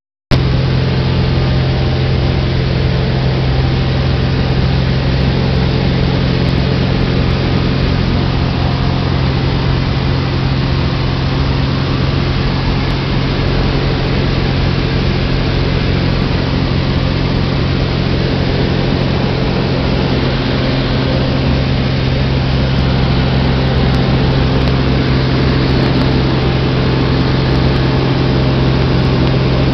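Sonex homebuilt light aircraft's engine and propeller droning steadily in flight, heard inside the cockpit: a constant low hum under an even rush of wind.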